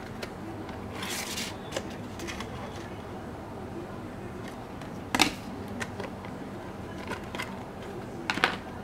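Clear plastic blister packaging being handled as a pair of pliers is pulled out of it: crinkling and rustling of the stiff plastic shell and card, with a few sharp clicks, the loudest about five seconds in and another near the end.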